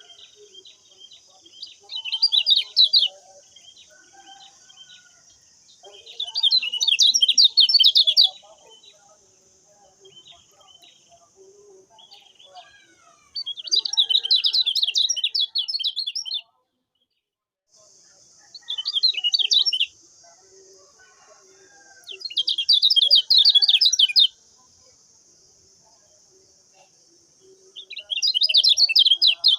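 Kecial kuning songbird singing in repeated bursts of fast, high chattering notes, six bursts of one to three seconds each, with short pauses between. A steady high hiss runs underneath and drops out briefly midway.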